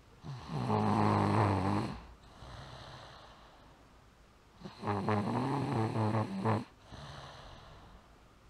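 A toddler snoring in his sleep: two long snoring breaths, each about two seconds, about four seconds apart, with quiet breathing between.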